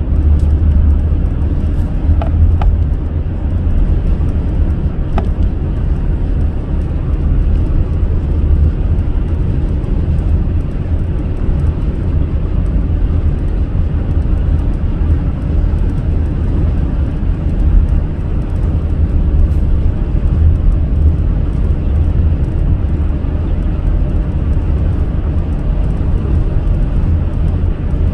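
Car driving steadily: a continuous low rumble of tyre, road and engine noise with no clear changes.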